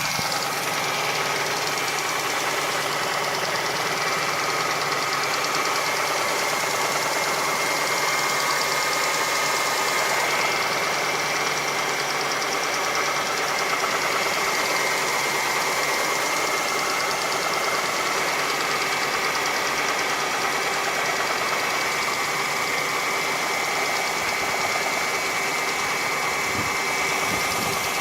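Hyundai Getz 1.4 four-cylinder petrol engine running steadily, with a rapid, even knocking from inside the engine.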